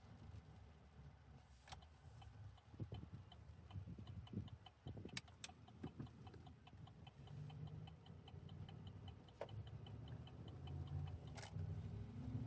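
Faint, even ticking of a truck's turn-signal indicator, about four ticks a second, starting a few seconds in and stopping near the end, over a low cabin rumble while driving. A few sharp clicks fall in between.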